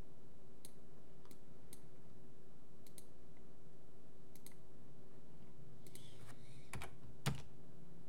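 Scattered clicks of a computer mouse and keyboard, about a dozen, the last one near the end the loudest, over a faint steady hum.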